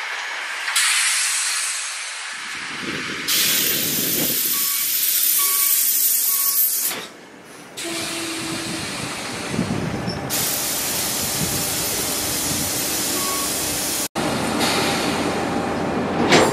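Steady hiss of air from a commuter train at the platform, starting and stopping abruptly several times, with a few faint short beeps.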